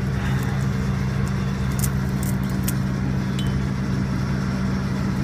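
Heavy logging machine's diesel engine running steadily at an even, low idle hum, with a few faint metallic clicks about two seconds in.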